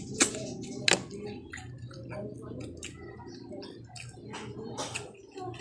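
Close-miked eating of steamed green mussels: wet slurping and smacking as the meat is sucked from the shells, with many sharp clicks, the two loudest within the first second.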